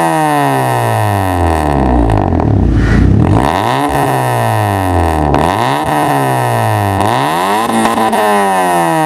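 Honda Civic four-cylinder engine revving through a stainless steel straight-pipe exhaust run from the headers. The revs fall away slowly over the first three seconds, then come several quick throttle blips, each climbing sharply and dropping back.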